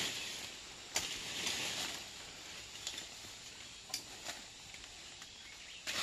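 Faint rustling with a few short, sharp clicks and snaps scattered through it, the sound of dry plant material such as bark, twigs or leaves being handled or stepped on.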